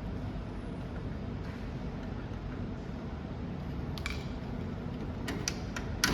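A few sharp clicks and knocks over a steady low hum, the loudest near the end: hardware being handled as the wire feed tube is fitted to a laser welder's wire feeder.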